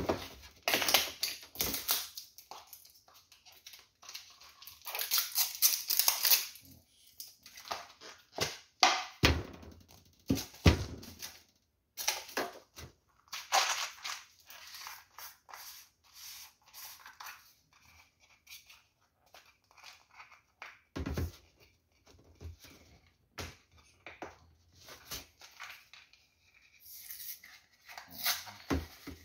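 Food containers being handled on a metal kitchen counter: a plastic peanut jar and bottles picked up, opened and set down, giving irregular clicks and rustles with several dull knocks.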